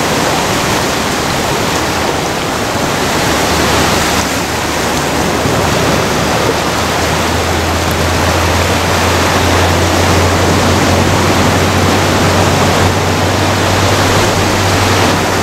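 Ocean surf breaking and washing up the beach: a loud, steady rush of water noise. A low rumble joins about three and a half seconds in and holds.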